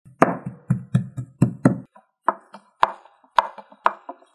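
Cleaver chopping pork by hand on a wooden cutting board: a run of quick chops, then slower, more spaced blows.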